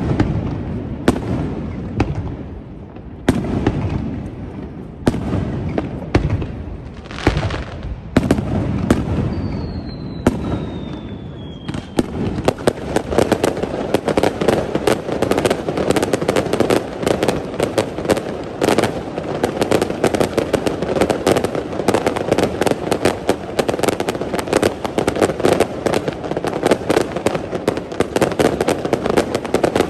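Aerial fireworks display: separate shells bursting with sharp booms every second or two, and a descending whistle, then about twelve seconds in a dense, continuous barrage of rapid bangs and crackles.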